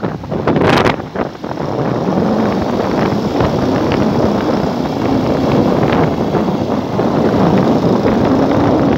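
Wind buffeting the microphone of a moving vehicle, with a steady engine hum beneath it and a strong gust just under a second in.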